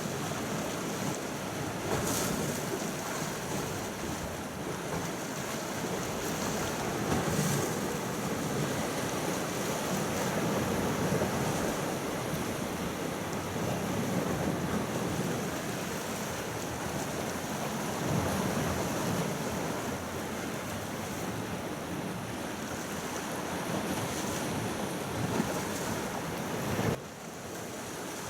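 Small sea waves washing, with wind rumbling on the microphone and a few brief louder gusts; the sound drops off abruptly near the end.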